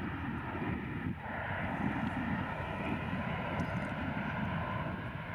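Boeing 737-800's CFM56 turbofan engines at takeoff power as the jet rolls down the runway away from the listener: a steady jet engine noise, a deep rumble with a hiss above it.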